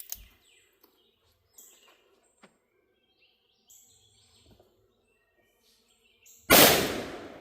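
A single shot from a Taurus Raging Hunter .500 Magnum revolver about six and a half seconds in: one very loud, sudden blast that rings out and fades over about a second. Before it, only faint clicks and a few bird chirps.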